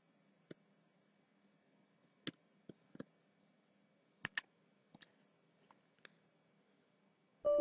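Faint, scattered clicks of a computer keyboard and mouse, about a dozen spread over several seconds, as a password is typed and OK is clicked. A tone sets in right at the end.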